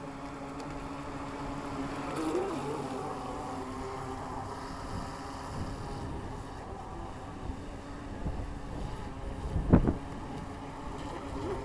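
Electric motor of a Harbor Freight Neptune RC boat running out on the water, a steady whine that bends in pitch with the throttle about two seconds in, with wind on the microphone. A single sharp thump late on is the loudest sound.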